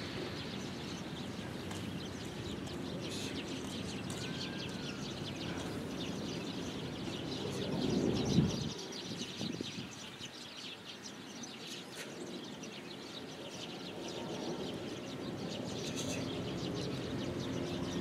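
Open-air background noise with a few birds chirping, and one short, louder low sound about eight seconds in.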